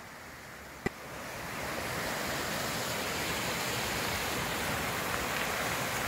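Mountain stream rushing over rocks, a steady wash of water that grows louder about a second or two in. A single sharp click sounds just under a second in.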